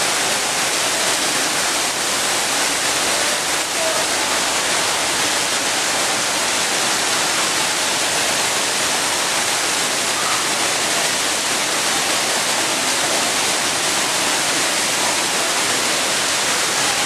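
Steady rushing of falling water from an artificial waterfall, with faint voices underneath.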